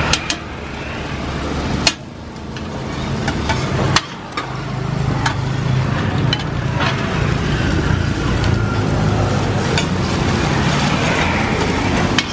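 Street-food cooking on a large round steel griddle: metal spatulas scrape and clack against the pan, with several sharp clinks, as eggs, shrimp and noodles fry. A steady low rumble runs underneath from about two seconds in.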